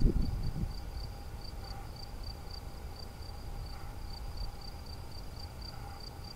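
An insect chirping steadily in high-pitched, even pulses, about four a second. A louder low rumble of wind on the microphone dies away within the first second.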